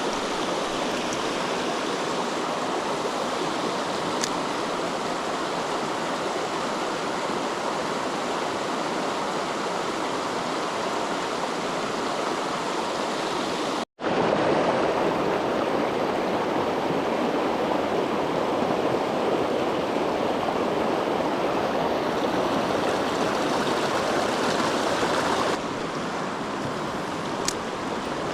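Mountain stream rushing over rocks, a steady hiss of water. It cuts out for an instant about halfway through and comes back a little louder, then eases slightly near the end.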